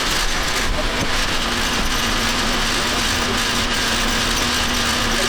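Steady running machinery or engine noise, with a faint even hum that comes in about a second and a half in.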